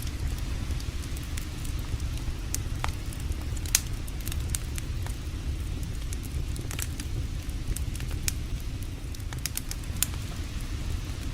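Campfire crackling, with irregular sharp pops and snaps, two of them louder, over a steady low rumble.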